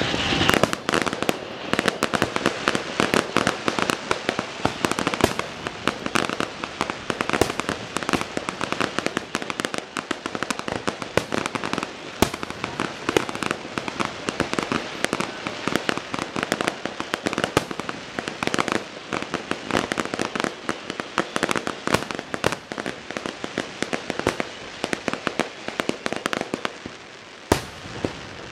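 Aerial fireworks display: a dense, nearly continuous barrage of bangs and crackling from bursting shells. It has a brief lull and two louder bangs near the end.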